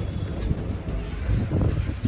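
Low, steady rumble inside a lift car.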